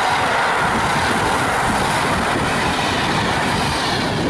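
Passenger train of express coaches passing close by at speed: a loud, steady rush of wheels on rails and air.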